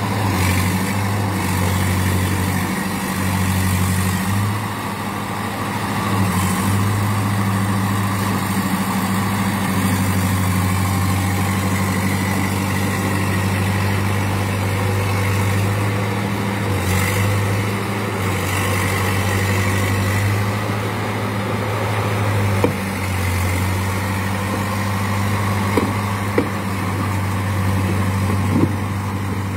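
Old crawler bulldozer's diesel engine running steadily under load as it pushes and levels wet earth with its blade, with a few sharp knocks in the last several seconds.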